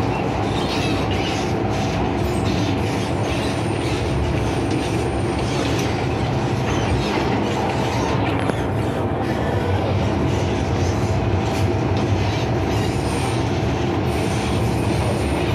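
Steady running noise inside an MTR M-Train passenger car in motion: wheels on rail and carriage rumble. A faint high-pitched whine comes and goes twice.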